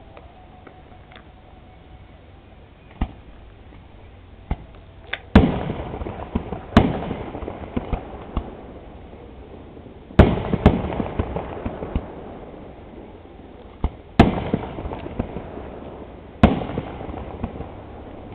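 Fireworks going off: a few small pops, then five loud bangs a few seconds apart, each followed by crackling that dies away over a second or two.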